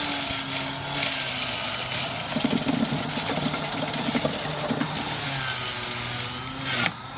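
Electric centrifugal juicer running as a cucumber is pushed through its feed tube and shredded: a steady motor whine with rough grinding noise, heaviest in the middle. Near the end the motor's pitch rises as the load comes off.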